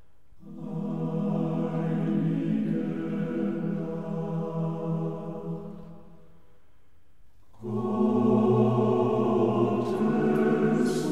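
Background choral music: voices holding slow sustained chords. The phrases break off briefly near the start and again for about a second past the middle, then a louder phrase comes in with a lower bass note.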